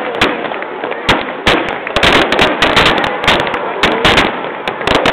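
Fireworks going off in a dense barrage: aerial shell bursts and crackling reports, several sharp bangs a second, with no let-up.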